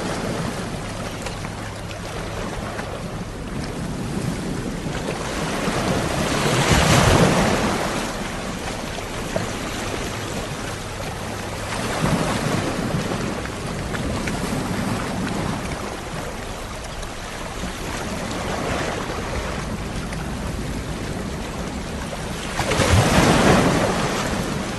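Sea waves washing onto a shore, a steady wash of surf that swells and fades, with the biggest waves breaking about seven seconds in and again near the end.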